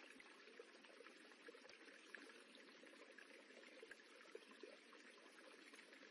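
Faint, steady rippling of running water, with small irregular splashes and trickles.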